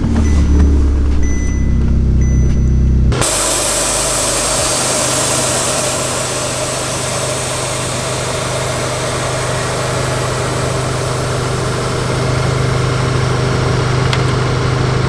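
Audi A3's engine idling with a steady low hum, heard inside the cabin. About three seconds in, from outside, a loud steady hiss of the Airlift air suspension dumping air to lower the car fully, with the engine's low idle underneath.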